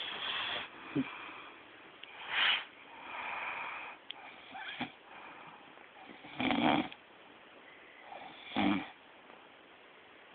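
A sleeping man snoring: loud snores come a few seconds apart, about 2.5, 6.5 and 8.5 seconds in, with softer snoring breaths between them.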